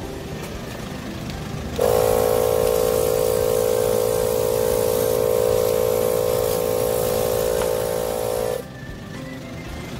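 Portable 12-volt tyre inflator's electric air compressor switched on about two seconds in, running with a steady hum for about seven seconds, then switched off.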